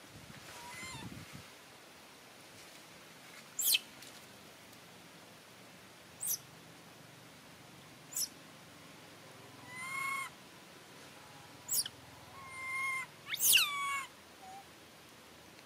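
Young long-tailed macaque calling: short pitched coos and a handful of sharp, very high squeaks that drop steeply in pitch. The calls come every couple of seconds, and the loudest are clustered near the end.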